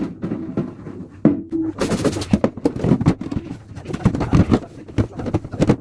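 Rapid clattering and knocking of objects being handled, with a burst of rustling about two seconds in.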